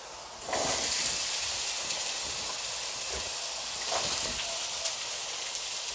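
Diced zucchini dropped into a hot pot starts sizzling about half a second in: a steady frying hiss that slowly eases off.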